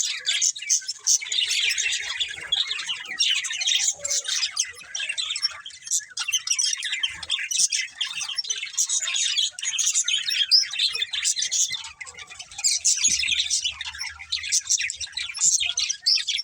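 Budgerigars chirping and warbling together in a continuous, busy chatter of rapid high notes.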